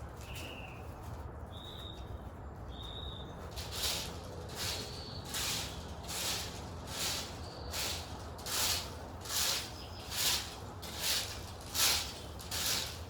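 A few short chirped notes from a bird, then a steady run of regular swishing strokes, a little more than one a second.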